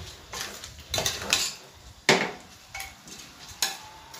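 A steel ladle stirring rice, lentils and greens in a metal pressure cooker pan, scraping against the pot in a handful of separate strokes, the loudest about two seconds in.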